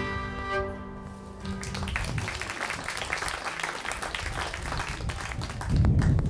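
An old-time string band's closing fiddle and guitar notes ring out and fade in the first second or so, then the audience applauds.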